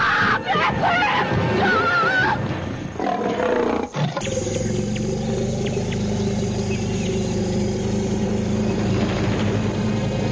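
Film soundtrack: a wild animal's wavering cries over music for about four seconds, then a sudden change to steady, sustained music chords.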